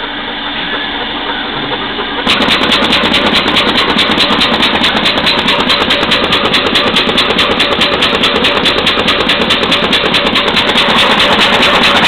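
EAM sheet feeder running, feeding paper sheets at about 300 a minute: a steady machine hum with a fast, even pulse of about five strokes a second. It starts up suddenly and gets louder about two seconds in, after a quieter steady hum.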